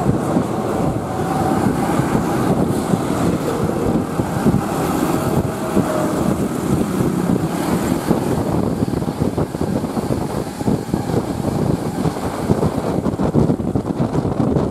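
Intercity bus's diesel engine with a growling exhaust, running loud with a rapid, rough pulsing, and wind buffeting the microphone.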